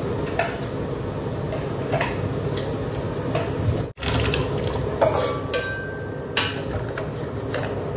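Metal spatula stirring and scraping food frying in a steel wok over a steady sizzle, with scattered clinks and scrapes against the pan. The sound cuts out for an instant about halfway through.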